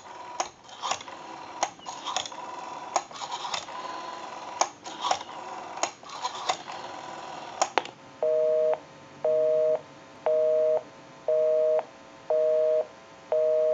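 Rotary dial of a Western Electric Princess telephone being turned and let go, its pulse clicks coming through the handset, followed about eight seconds in by a busy signal: a two-note tone beeping about once a second, six times. The line is busy because the phone is calling its own number.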